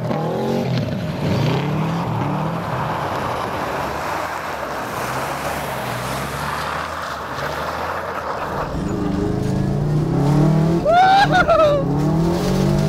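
Turbocharged Subaru EJ22 flat-four rally engine revving up and falling back repeatedly as the car slides through corners on studded tyres on ice, over a steady hiss of tyres and spray. About eight and a half seconds in the sound changes to a deeper, steadier engine drone with heavy rumble, as heard inside the car.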